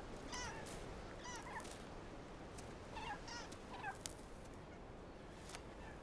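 Megapodes calling faintly: short, arched notes in small groups of two or three, spread over the first four seconds, above a steady faint hiss.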